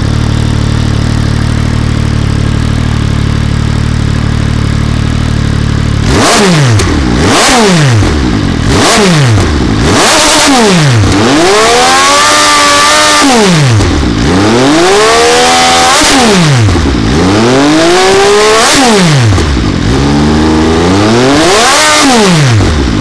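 MV Agusta Brutale 800's three-cylinder engine running through a GPR Powercone aftermarket exhaust. It idles steadily for about six seconds, then is revved again and again: quick blips and several longer revs that climb in pitch and fall back to idle.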